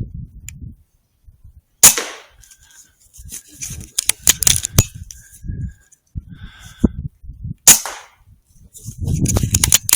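Two shots from an Air Arms S510R pre-charged pneumatic air rifle, each a sharp crack, about six seconds apart, with a run of lighter clicks and knocks between them.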